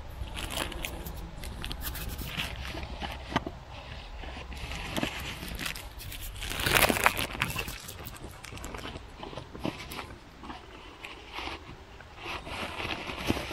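Close-up handling noise: a plastic bag crinkling and paper towel rustling, with scrapes and clicks, as a plastic oil filter housing cap is twisted off by hand. A louder burst of crackling comes about seven seconds in.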